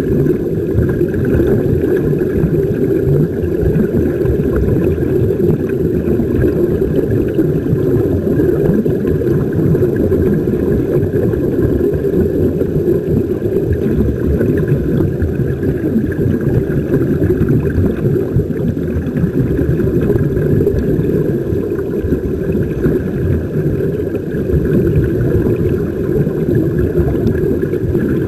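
Steady muffled underwater rumble picked up through a camera's waterproof housing, with air from surface-supplied sea-walk diving helmets bubbling out into the water.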